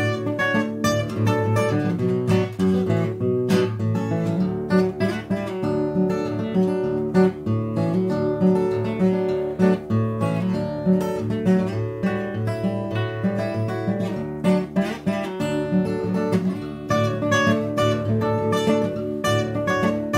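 Martin OM-28 rosewood steel-string acoustic guitar played fingerstyle: a continuous run of plucked notes, with repeated bass notes under a higher melody.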